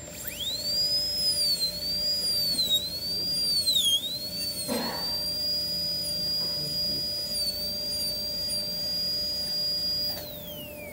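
High-speed air-turbine dental handpiece with a round diamond bur, spinning up to a high whine. The pitch dips three times in the first four seconds as the bur bears on the tooth to deepen a ball rest seat, then holds steady. The handpiece winds down near the end.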